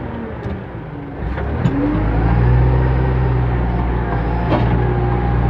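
JCB 3CX backhoe loader's diesel engine running, heard from the cab: it drops to a lighter note, then pulls back up under load about two seconds in, with whines rising and falling over it and a couple of short clanks as the loader bucket is worked.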